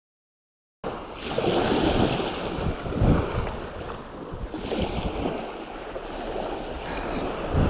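Sea waves washing, with wind gusting on the microphone; the sound starts abruptly about a second in and comes in surges.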